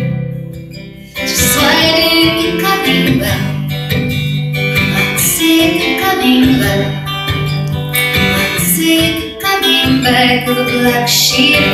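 Live acoustic guitar strumming with a woman singing at the microphone. The music drops away at the start and comes back in sharply about a second in.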